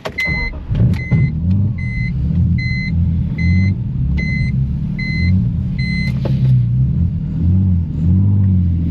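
A turbocharged BMW 325i's 2.5-litre inline-six restarts right after stalling and runs with its idle wavering up and down, in keeping with the owner's complaint of intermittent stalling. A dashboard warning chime beeps evenly, about once every 0.8 s, and stops about six seconds in.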